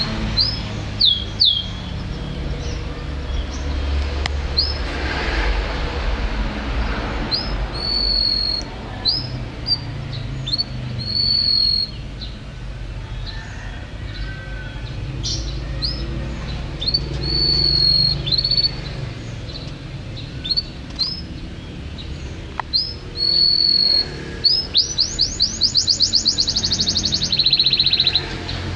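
Domestic canary in full song: short upswept chirps and held whistled notes, building near the end into a fast trill of repeated notes and then a buzzy note, over a steady low background rumble.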